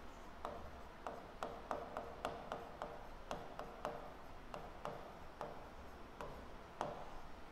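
Pen or stylus tip tapping and clicking on an interactive smart board's screen while a word is handwritten: a string of light clicks at irregular spacing.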